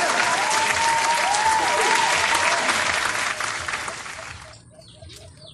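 Applause and cheering with a few rising-and-falling whistles, cutting off abruptly about four and a half seconds in; small birds chirp faintly after it.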